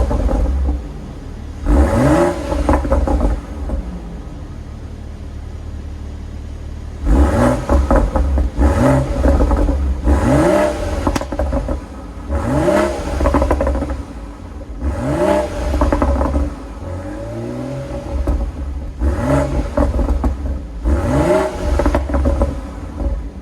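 Stock exhaust of a 2019 BMW X3 M40i, its 3.0-litre turbocharged straight-six warm and in Sport Plus mode, idling and blipped in a string of short revs. Each rev climbs quickly in pitch and drops back to a steady idle, and the engine settles into two longer idle spells between the bursts.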